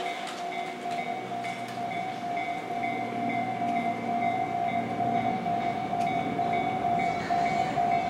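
Japanese railroad crossing warning bell ringing a fast repeating ding. From about three seconds in, an approaching train's rumble grows beneath it.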